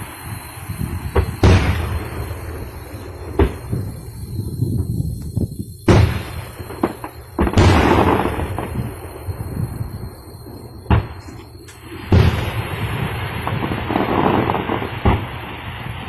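A series of sharp bangs at irregular intervals of one to three seconds, some trailing off in an echo, over a steady low rumble. They are outdoor bangs that could be fireworks or gunshots.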